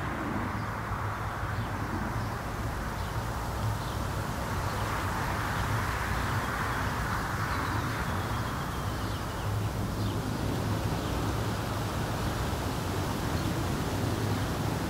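Steady city outdoor ambience: a low hum of distant traffic under an even wash of street noise.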